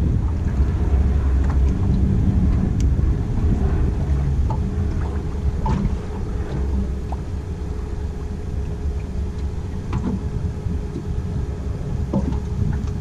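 Fishing boat under way at slow trolling speed: a steady low rumble from the motor and hull, with a faint steady hum and a few light ticks over it.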